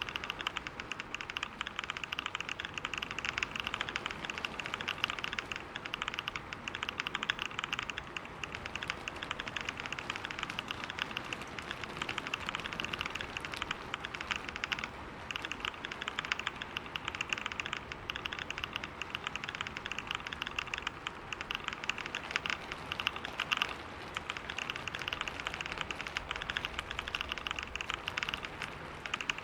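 Fast, continuous typing on a computer keyboard at about 125 words per minute: a dense stream of key clicks with a couple of brief pauses.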